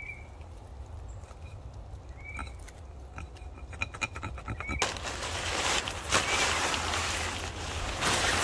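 Small clicks and leaf rustling from hands working at the ground. About halfway through, loud crinkly rustling and flapping of nylon tent fabric being pulled out and shaken begins, and it goes on to the end.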